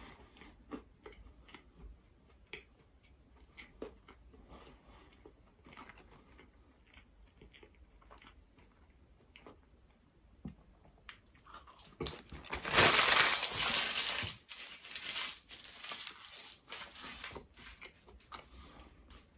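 Mouth sounds of chewing a flaky croissant: soft crunches and small clicks. About two-thirds of the way in, a loud crinkling of a paper bag lasts about two seconds.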